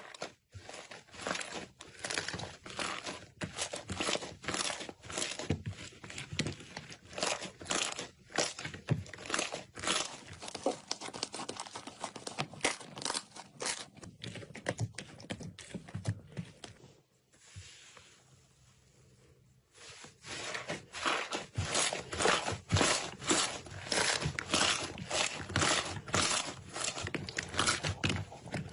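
Slime squeezed and pressed by hand, giving dense, rapid crackling and popping clicks, with a short lull about two-thirds of the way through.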